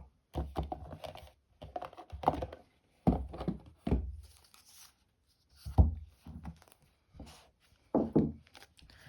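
Cardboard oracle-deck box and its contents being handled: a string of light knocks and thuds as pieces are picked up and set down, with some paper rustling.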